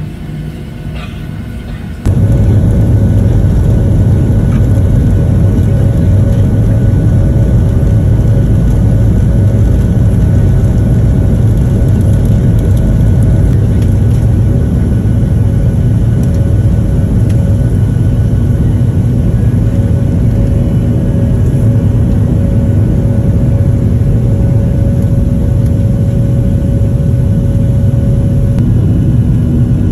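Jet engines of a Southwest Boeing 737 heard from inside the cabin during the takeoff run and climb-out: a loud, steady, deep rumble with a faint hum on top. It starts abruptly about two seconds in.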